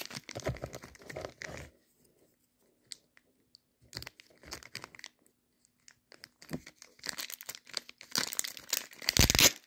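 Hands opening a small cardboard box and pulling out a plastic-wrapped folding diamond sharpener: scattered rustles and light clicks, a near-silent pause about two seconds in, then denser crinkling and tearing of packaging that is loudest just before the end.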